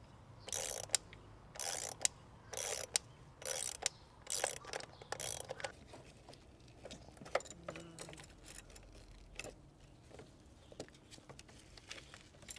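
Hand ratchet wrench clicking in about six quick back-and-forth strokes over the first five seconds, then scattered lighter clicks and taps of tools on metal.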